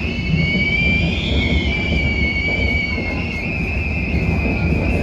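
High-pitched whistling tone from a moving London Underground S8 Stock train, steady with a slight wavering in pitch, over the low rumble of the train running; the whistle cuts off at the very end.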